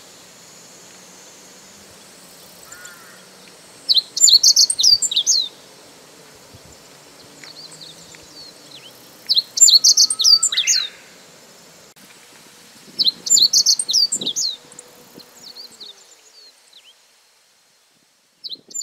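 Meadow bunting singing: three loud, quick, high-pitched song phrases of about a second and a half each, spaced a few seconds apart, with a fourth starting at the very end. Fainter bird calls come between the phrases.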